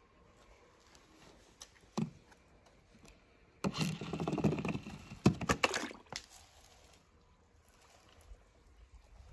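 A toy monster truck's plastic wheels rattling down a ramp of wooden sticks and blocks for about two and a half seconds, ending in a splash into a tub of water. A single knock about two seconds in.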